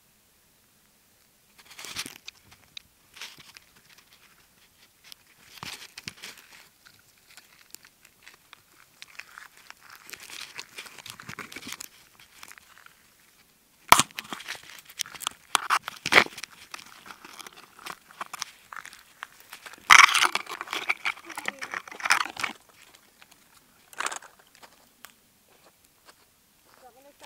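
Handling noise on a small recording device's microphone: irregular rustling, crinkling and clicks. The sharpest knocks come about halfway through and again about three-quarters of the way through.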